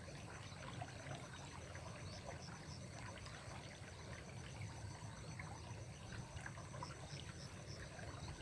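Faint, steady trickle of running water, with a few light scattered ticks.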